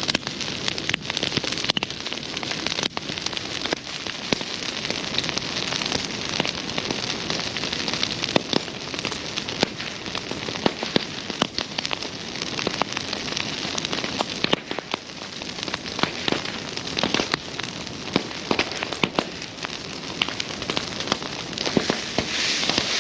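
Wood bonfire burning, crackling and popping irregularly over a steady hiss of flame.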